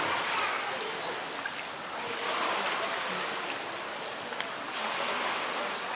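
Water sloshing and splashing around a swimming polar bear: a steady wash of moving water with a few small, sharp splashes.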